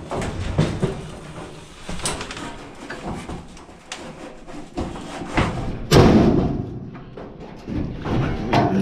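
Knocks and clatter from the parts of a Frigidaire dryer being handled during disassembly, with one heavy thud about six seconds in.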